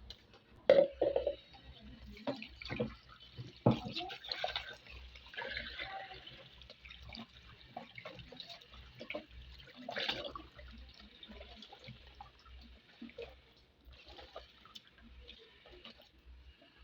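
Water running from a kitchen tap into a sink, with irregular knocks and clatters of things being handled; the loudest come near the start, around four seconds in and around ten seconds in.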